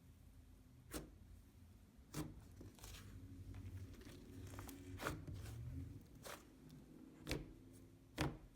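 Slime being squished and poked by hand, giving quiet sticky crackles and a series of sharp little pops and clicks about a second apart.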